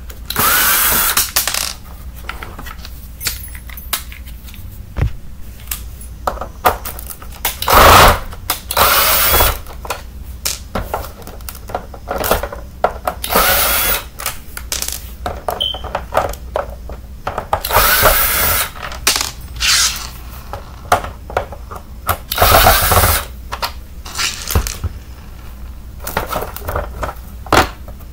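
Cordless drill-driver running in short bursts, about five times, backing screws out of an upright vacuum cleaner's plastic floor nozzle. Between the bursts come sharp clicks and the clatter of loose screws and plastic parts being handled.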